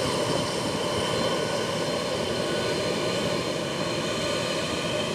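A Boeing 747's jet engines running steadily at low power as the airliner taxis: an even rush of engine noise with thin, high whining tones over it.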